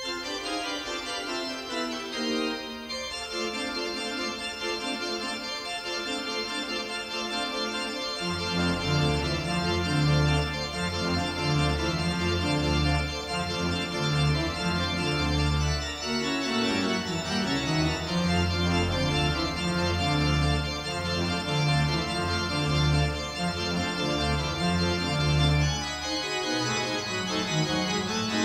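Pipe organ playing a toccata in dense full chords, beginning with a sudden chord; deep pedal bass notes come in about eight seconds in and carry on beneath the manuals.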